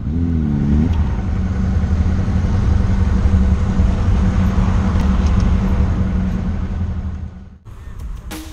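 Motorcycle engine running with a steady low rumble. Its pitch rises and dips briefly in the first second, and it cuts off near the end.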